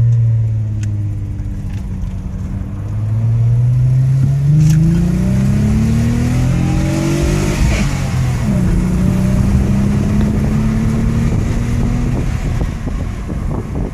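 Nissan Maxima's engine revving as the car accelerates. Its pitch climbs for several seconds, drops about halfway through, then climbs again.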